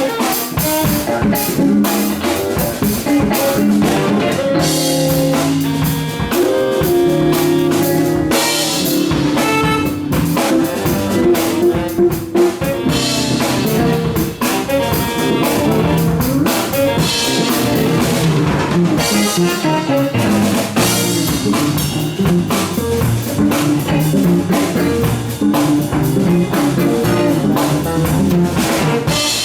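Live band playing an instrumental funk-jazz tune: drum kit keeping a busy groove under a moving bass line, electric guitar and horns.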